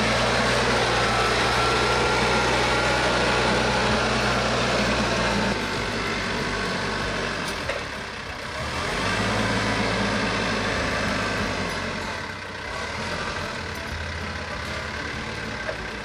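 Diesel engine of a TYM T474 tractor running steadily as the tractor moves. Its sound is loudest for the first five seconds or so, dips about eight seconds in, comes back up, and grows quieter in the last few seconds.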